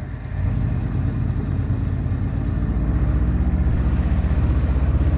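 Boat engine running with a steady low drone, getting louder about three seconds in as it picks up speed.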